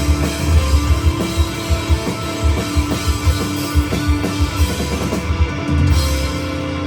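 Live rock band playing, with a drum kit and electric guitar. About six seconds in the drum hits stop and a held chord rings on.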